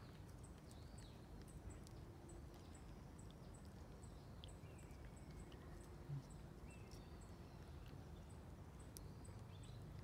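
Near silence with faint outdoor ambience: a high, faint ticking about twice a second and a few faint chirps. One soft low thump comes about six seconds in.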